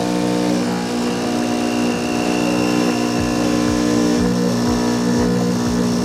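Sonifer espresso machine's pump buzzing steadily while it dispenses hot water into a small glass pitcher, with faint low pulses from about halfway.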